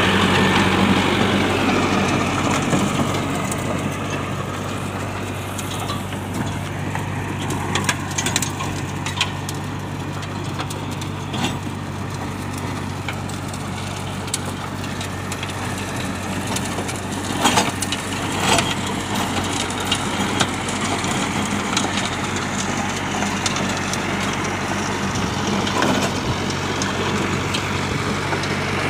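Mahindra Arjun 605 DI tractor's diesel engine running steadily under load while driving a rotavator through dry soil, with scattered sharp clicks and knocks over the churning.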